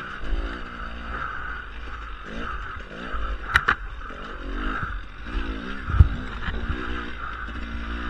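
Dirt bike engine revving up and down as the bike is ridden over rough ground, with steady wind noise. Two sharp clicks come a bit past three and a half seconds, and a loud knock, the loudest sound, at about six seconds.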